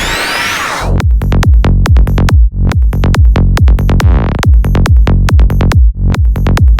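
Electronic dance music: a rising sweep that drops about a second in into a heavy, steady bass-driven beat.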